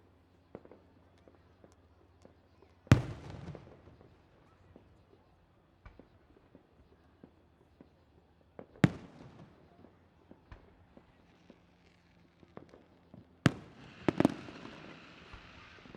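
Aerial fireworks shells bursting: four sharp bangs, about 3, 9 and 13.5 seconds in and one more close behind the third, each trailing off in a rumbling echo. Small scattered pops come in between, and after the last two bangs there is a crackling hiss.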